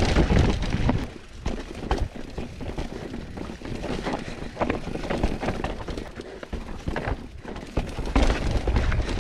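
Mountain bike rattling over rocks on a technical descent: a run of sharp knocks and clatter from tyres, chain and frame, with a low wind rumble on the microphone in the first second and again near the end.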